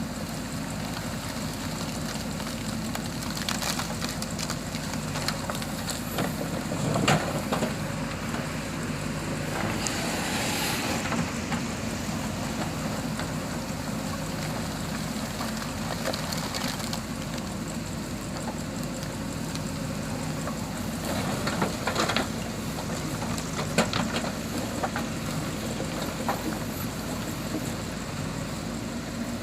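Diesel engine of a JCB 3DX backhoe loader running steadily while it works, with a few sharp knocks and a brief hiss.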